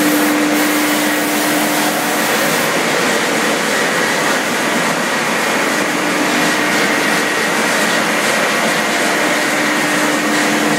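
XGJ560 wood pellet mill running under test, a loud, steady mechanical noise with a low hum from its electric drive that fades for a few seconds in the middle and then returns.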